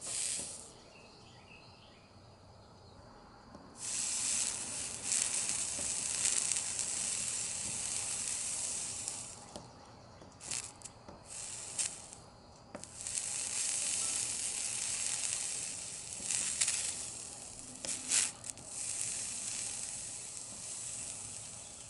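Soldering iron melting solder on the corner joint of a stained-glass panel's metal frame, the flux sizzling in stretches of a few seconds with short breaks and a few sharp crackles.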